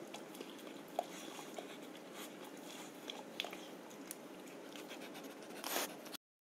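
Old yellow Labrador licking and chewing a food scrap off the floor: faint, scattered mouth clicks and smacks, with a short louder rustle near the end.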